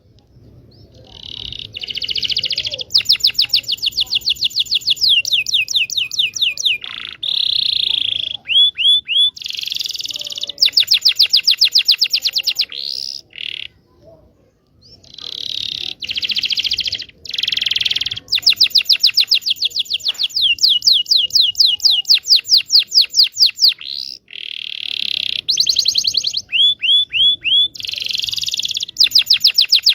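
Local Indonesian canary singing a long, loud song of fast repeated trills, buzzy rolls and quick sliding notes, broken by a short pause about halfway through.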